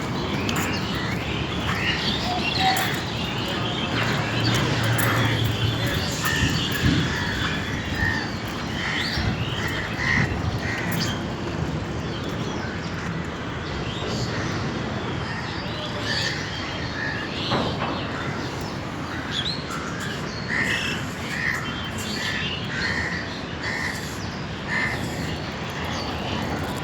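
Birds chirping and calling again and again in short notes, over a steady background hiss.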